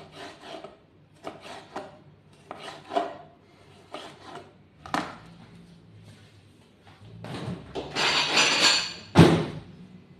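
Kitchen knife slicing a tomato on a plastic cutting board: a run of short cutting strokes, with a sharp click about halfway. Near the end comes a louder rough noise for about two seconds, ending in a sharp knock.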